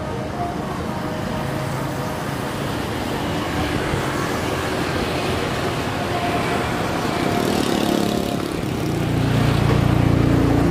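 Jet engines of a Boeing 787-8 Dreamliner running on the runway: a steady rumble and hiss that grows louder, with a heavy low rumble near the end.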